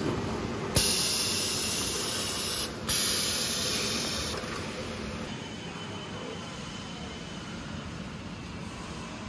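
Pneumatic pusher on a weighing-and-sorting conveyor rejecting an out-of-tolerance carton: a sharp click, then two loud bursts of compressed-air hiss, the first about two seconds long and the second about a second and a half. A quieter steady background follows.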